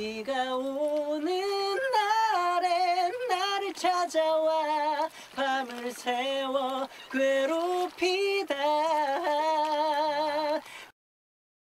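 A man singing alone without accompaniment, a high, held melody with vibrato on the long notes. The voice stops suddenly about a second before the end.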